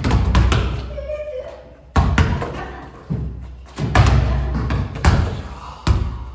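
Basketballs being dribbled on a hard floor: repeated sharp thumps, some followed by a boomy low echo.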